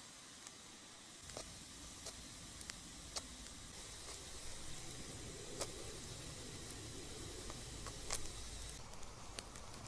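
Knife slicing garlic cloves on a leather mat: scattered sharp clicks of the blade a second or more apart, over a low steady rumble that starts about a second in.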